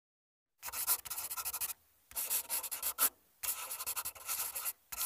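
Felt-tip marker scribbling hard on paper, colouring in with quick back-and-forth strokes, in four bursts of about a second each with short pauses between.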